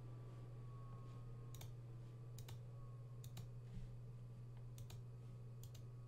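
Computer mouse clicking about five times, each click a quick double tick of press and release, spread over a few seconds. A steady low hum runs underneath.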